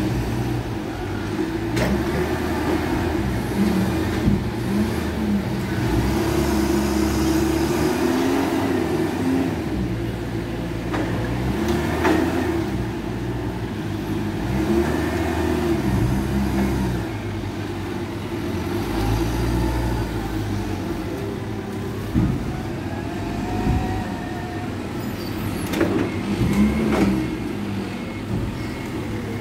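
Forklift engine running and revving up and down as the truck drives and clamps cotton bales, with occasional knocks.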